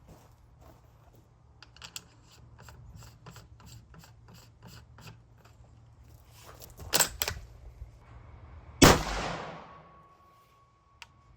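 Clicks and rattles of the rifle being handled, then, about nine seconds in, a single loud unsuppressed shot from a 5.56 bolt-action rifle with a bare muzzle (no brake or silencer), followed by a long fading echo.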